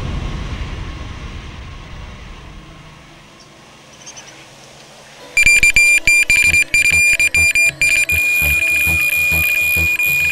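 The tail of the title music fades out, leaving a quiet stretch. About five seconds in, an electronic carp-fishing bite alarm goes off, a high piercing beep in rapid stutters that runs together into one continuous tone: line is being pulled off the reel by a fish taking the bait.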